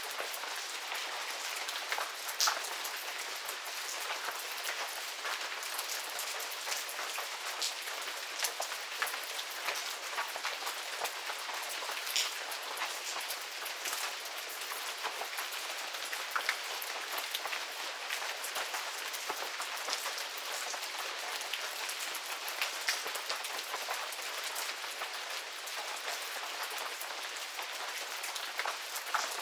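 Medium rain falling steadily in a garden, an even hiss with scattered louder drops ticking close by.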